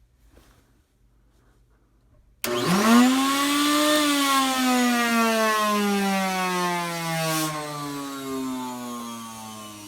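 Nutone CV 353 central vacuum power unit starting with a sudden, very loud whine about two and a half seconds in. The pitch climbs for about a second and a half, then falls steadily as the motor winds down after being switched off. The owner suspects dry bearings or a failing motor.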